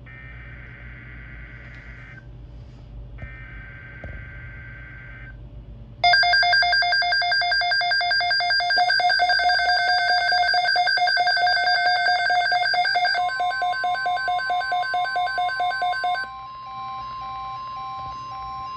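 Emergency Alert System SAME header: two buzzing bursts of digital data tones, each about two seconds long. About six seconds in a loud, rapidly pulsing multi-tone alert sound starts and runs for about ten seconds, signalling an incoming alert. A steady single tone joins it and carries on after the pulsing stops.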